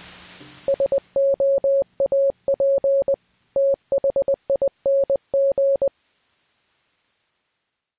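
A short burst of television static hiss that fades within the first second, then a single-pitched electronic beep keyed in Morse code, short and long tones spelling out "SOAP THING".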